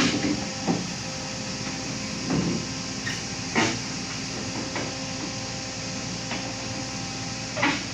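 Volvo excavator's diesel engine running steadily, with several sharp metallic clanks and knocks as the machine works its way onto a trailer.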